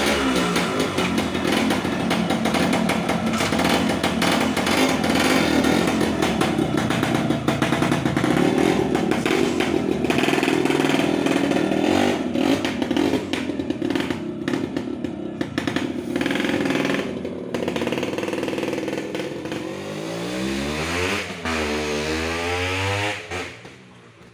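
Yamaha RX 100's 100 cc two-stroke single running loud through a new glass-wool-packed silencer, with revving. Later the bike pulls away: the note rises and falls in pitch, then fades out near the end.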